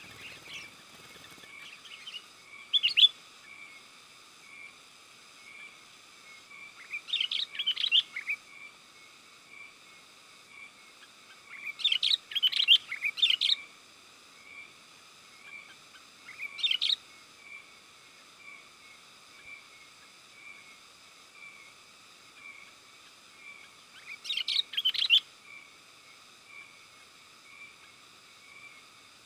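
Sooty-headed bulbul (kutilang) singing in short bursts of quick, chattering chirps, five phrases a few seconds apart, over a faint steady background with a soft regular pulse. This is a lure recording of the kind played to call wild bulbuls and to train caged ones.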